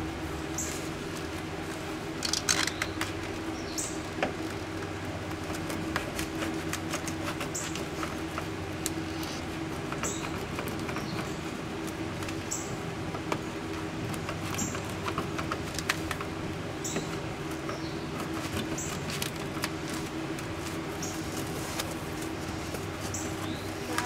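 Handling of a sheet of EZ-Cool foam-core foil insulation: scattered small clicks and rustles over a steady low hum, with short high chirps recurring every couple of seconds.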